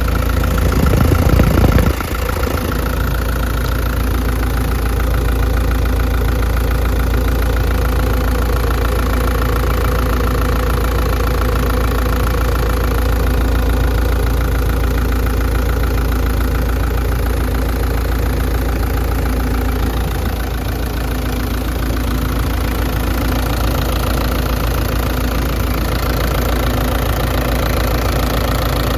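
CAT 312C excavator's diesel engine running steadily at idle. It is louder for the first couple of seconds, then drops back to an even run.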